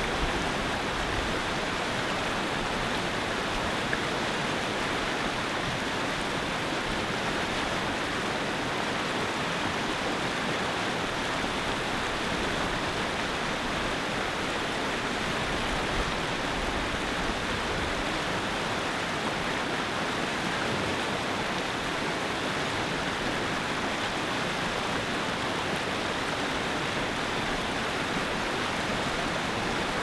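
River rapids: whitewater rushing steadily over rocks, an even hiss-like rush with no breaks or changes.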